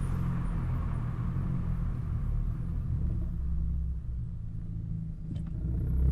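Exhaust of an Audi A3 2.0 TFSI turbocharged four-cylinder, fitted with an aftermarket downpipe and catback, running with a deep steady note. It eases off a little past the middle and picks up again near the end.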